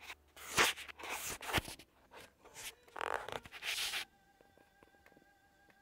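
Close rubbing and scraping on the microphone in bursts, with two sharp knocks about half a second and a second and a half in; it stops about four seconds in, leaving a faint steady high hum.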